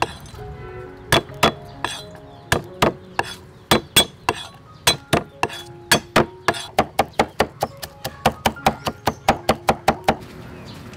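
Cleaver chopping garlic cloves on a thick round wooden chopping board: sharp knocks of steel on wood, a few spaced strokes at first, then a quicker run of about four to five a second that stops near the end.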